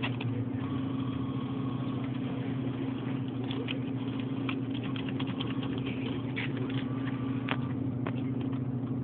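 Vending machine's steady mechanical hum, with scattered faint clicks.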